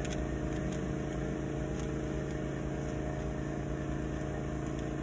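Steady low mechanical hum of a running motor or engine, with a few faint light clicks over it.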